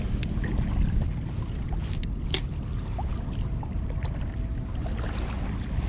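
Wind rumbling on the microphone, with two sharp clicks about two seconds in and a faint steady whine for a second or two after that.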